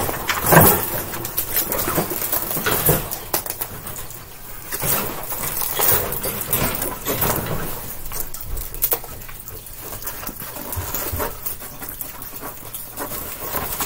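White wire cage panels rattling and clinking as they are handled and snapped together, with irregular clicks and knocks throughout.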